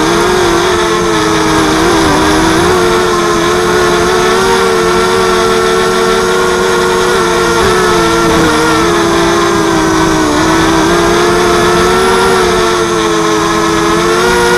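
Motors and propellers of a 230-size FPV mini quadcopter in flight, heard close up from its onboard camera: a steady, loud buzzing whine whose pitch dips and rises slightly as the throttle changes.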